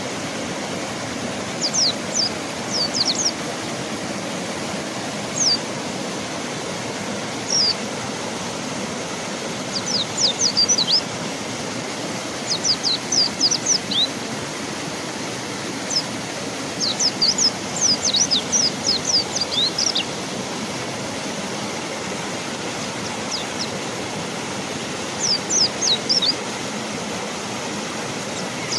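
Steady rush of river water, with a mountain white-eye (pleci gunung) giving runs of short, high, quickly falling chirps every few seconds.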